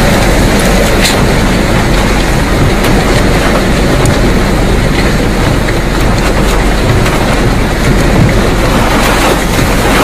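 Tornado wind blowing hard around a car, heard from inside as a loud, steady rushing noise like a passing freight train, with a few faint clicks on top.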